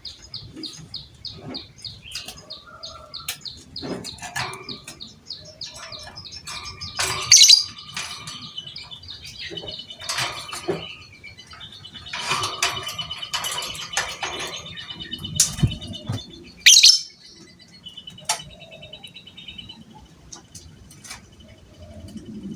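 Lovebird chattering: a fast run of evenly repeated shrill notes, then busy, jumbled chatter with two loud shrieks, one about seven seconds in and one near seventeen seconds.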